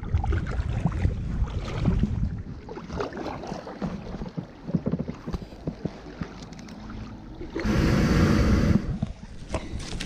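Kayak paddle strokes, with water splashing and knocking against the kayak's plastic hull in shallow water. About eight seconds in, a loud rush of noise lasts about a second.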